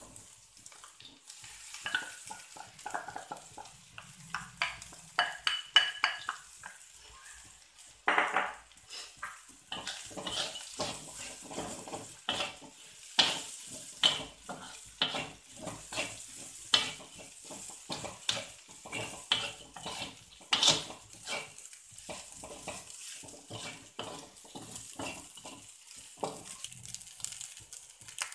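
Wooden spatula scraping and knocking against a metal wok as rice is stir-fried, over a light frying sizzle. The strokes come irregularly, often several a second.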